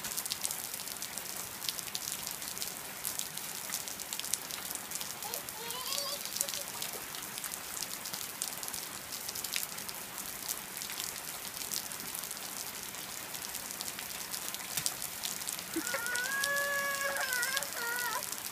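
Steady rain falling, with many small drop ticks. Near the end comes a brief high-pitched held call.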